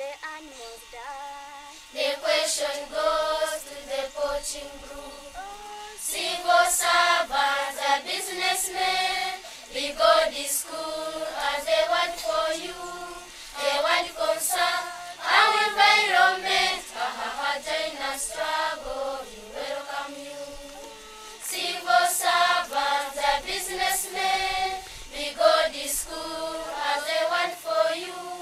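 A choir of primary-school children singing a song, in phrases that swell and fall every few seconds.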